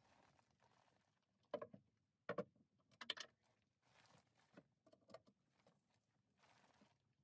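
Faint handling sounds of items being set into wooden storage bins: about five scattered light knocks and taps, two of them close together near the middle, with soft rustling between.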